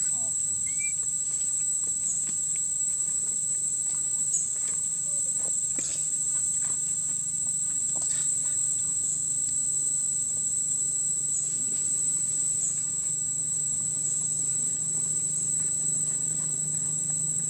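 Steady high-pitched insect chorus, unbroken throughout, with a few faint clicks and rustles over it.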